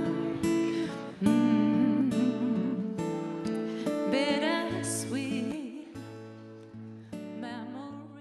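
Acoustic guitar playing slow struck chords, with wavering held notes above them, dying away toward the end.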